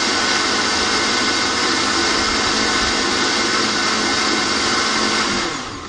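Countertop blender running steadily at speed, blending water, chopped apple and shake powder. The motor is switched off near the end and spins down.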